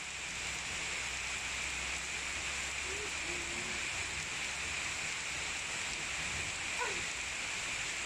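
Heavy rain falling steadily on paving and foliage, an even hiss.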